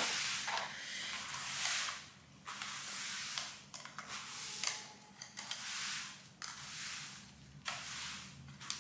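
Clear plastic packaging crinkling and rustling as it is handled, in a string of bursts about a second long with short quieter gaps between.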